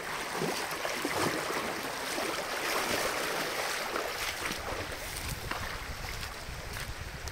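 Shallow river running over a stony bed, a steady rushing hiss, with wind buffeting the microphone from about two-thirds of the way in.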